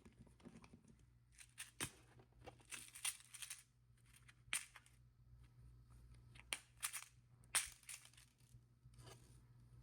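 Small metal jewelry findings handled on a work surface: faint, irregular clicks and light rattles of jump rings, chain and charms, with sharper clicks about two, four and a half, six and a half and seven and a half seconds in.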